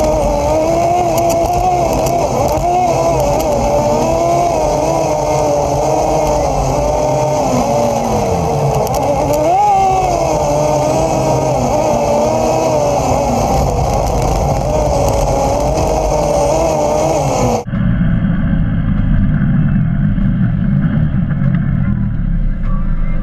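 Polaris RZR 800 side-by-side's twin-cylinder engine running under way, its pitch rising and falling with the throttle. About three-quarters of the way through the sound cuts off suddenly to a duller, muffled vehicle noise.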